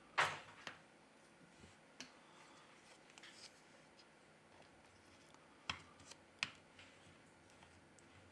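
Sharp little plastic clicks and taps from a smartphone's internal plastic cover and parts being pried loose and handled: a loud click just after the start, a lighter one about two seconds in, and two more clicks a little past halfway.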